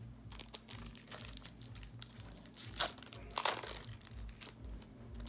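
Foil wrapper of a Pokémon trading card booster pack crinkling as it is handled and torn open, with a couple of louder rips about three seconds in.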